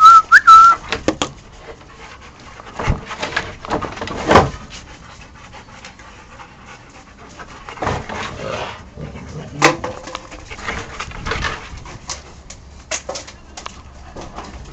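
Dogs panting close by, with scattered clicks and scuffs of movement and a short high wavering tone at the very start.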